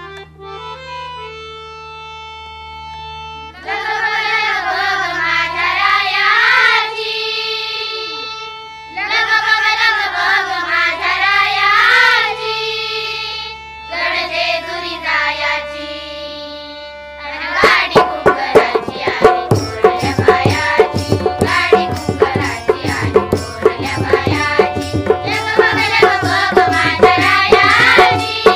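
Children singing a Marathi folk song over a held harmonium chord, in long sung phrases with wavering pitch. After about 17 seconds tabla and a barrel drum come in with a steady beat under the singing.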